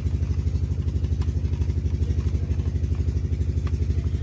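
Diesel engine chugging steadily at an even beat of about ten pulses a second, with a few faint clicks.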